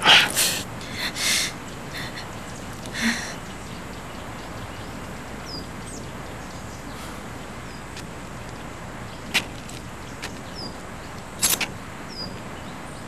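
Short rustling and scuffing sounds of handling cloth and rope bonds, several times, over a steady background hiss, with a few faint high chirps.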